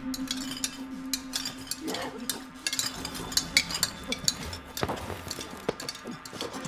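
Spoons clicking and scraping against china soup bowls and cups in quick, irregular clinks, over a steady low hum.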